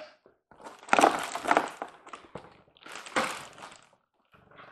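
Clear plastic wrapping crinkling and cardboard rustling as a boxed model train car is lifted out of a shipping carton. The sound comes in two bursts, about a second in and again about three seconds in.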